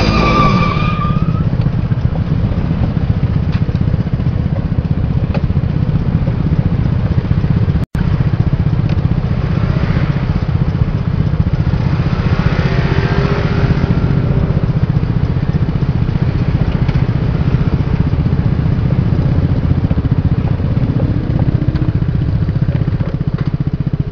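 Motor scooter engine running steadily close to the microphone, a low rumble just after a scooter collision. A short squeal at the very start dies away within about a second.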